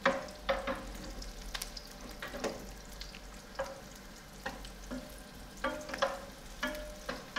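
Wooden spoon stirring chopped red onion in a frying pan, knocking and scraping against the pan at irregular moments, over a steady sizzle of the onion frying in olive oil to brown.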